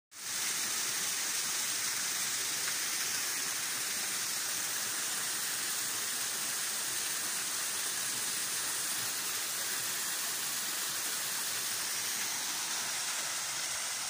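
Waterfall cascading over stone steps into a small stream: a steady sound of falling, splashing water.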